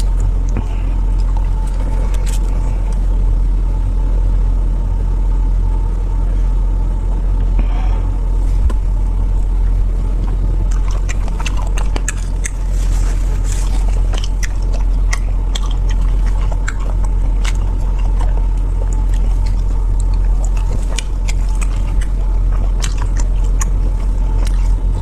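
Someone eating, with scattered crisp clicks and crunches of biting and chewing, over a steady deep rumble that runs underneath and is the loudest sound.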